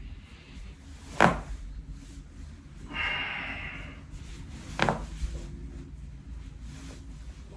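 A person cracking their own joints: two sharp cracks about three and a half seconds apart, with a short rushing noise between them.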